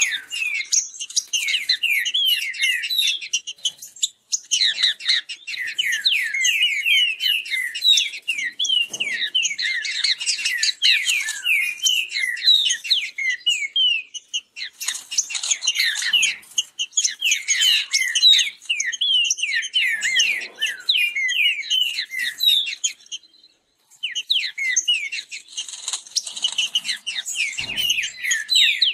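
Green-winged saltators (trinca-ferro) singing against each other in fast song: a dense, rapid stream of quick whistled notes that overlap, with a couple of brief pauses.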